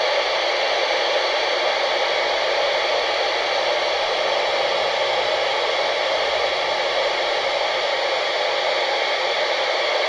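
Steady FM static hiss from a handheld radio's speaker tuned to 29.6 MHz, heard between transmissions with no station on the channel.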